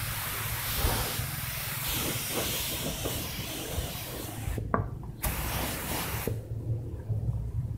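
Aerosol spray can hissing as it sprays clear lacquer: one long burst that stops about four and a half seconds in, a short burst of about a second, then it stops about six seconds in. A low rumble runs underneath.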